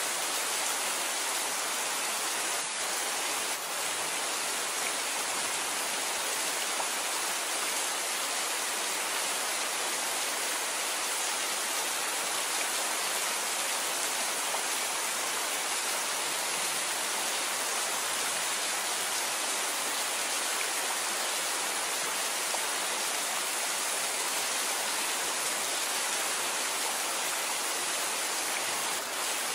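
Steady rain falling, an even, unbroken hiss of water with no separate drops standing out.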